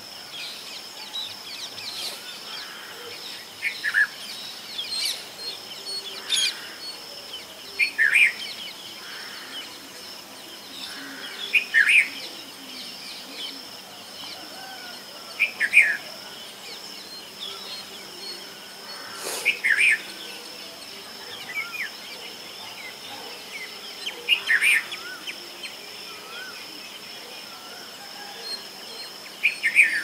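Red-vented bulbul calling: short, bright phrases repeated about every four seconds. A steady high-pitched hum runs underneath.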